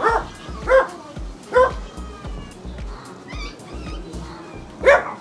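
A dog barking in short, high yaps: three barks in the first two seconds, then one more, the loudest, near the end. Background music plays underneath.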